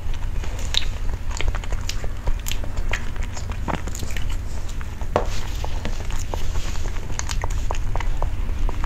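Close-miked mouth sounds of eating soft cream cake: wet chewing and smacking with scattered small clicks, over a steady low hum.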